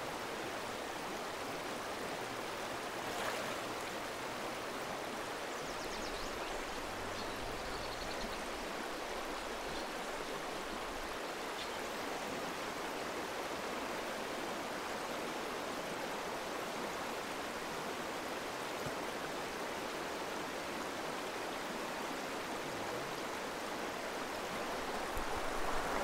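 Small mountain trout stream flowing: a steady, even rush of running water.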